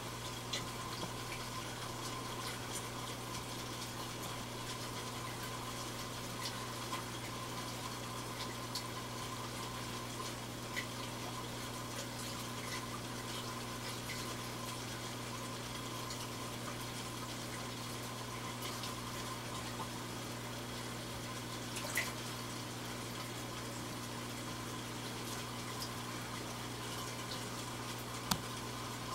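Aquarium water circulation running steadily, with water trickling and splashing and a constant low pump hum. Two faint clicks late on.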